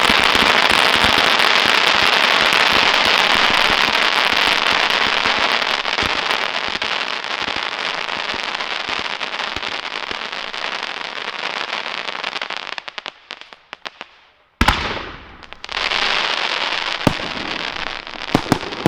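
Fireworks crackling densely, fading away about two-thirds of the way through. Then a sharp bang, a fresh burst of crackling, and a few single bangs near the end.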